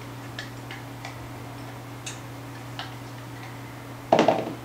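A few faint, light clicks of a mug and bowl while melted butter is poured, then about four seconds in a short, louder scrape of a spatula scraping the last butter out of the mug.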